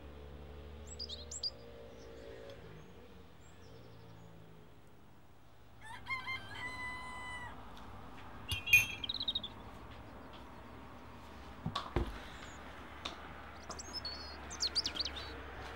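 A rooster crowing once, about six seconds in, with small birds chirping now and then.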